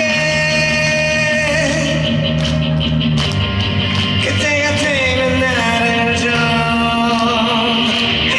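Rock song performed live: a voice holding long sung notes over electric guitar, bass and drums.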